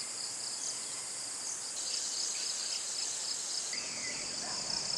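A chorus of insects trilling steadily at high pitch, with a faint short chirp about four seconds in.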